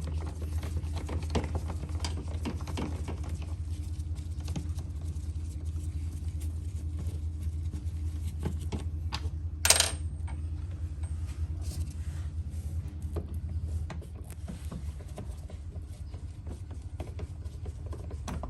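Small metal clicks and clinks of a Phillips screwdriver working the bolts of an SUV's air filter housing, with one louder, sharp ringing metal clink about halfway through. A steady low hum runs underneath.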